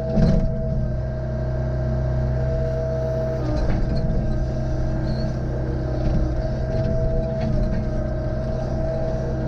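An excavator's diesel engine runs steadily with a constant whine over it, while it splits firewood. A sharp knock comes just after the start, and fainter knocks follow a few times.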